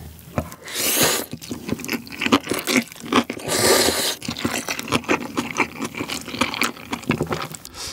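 A mouthful of jjapaghetti noodles being slurped up, in two long wet slurps about a second in and near the middle, with close-up wet chewing and lip smacking between and after them.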